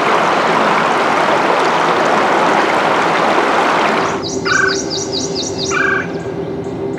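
Water rushing steadily over the rocks of a shallow river. About four seconds in it gives way to woodland sound, with a bird calling in quick runs of repeated high chirps.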